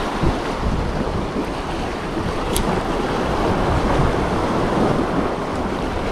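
Sea surf washing on the shore under wind buffeting the microphone, a steady rushing noise with an uneven low rumble. A brief high click about two and a half seconds in.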